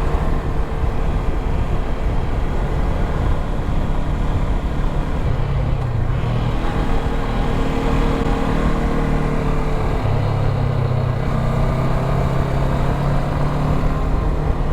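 Motorcycle engine running under way with a dense rumble of wind and road noise; the engine note shifts in pitch a few times, about five, six and ten seconds in.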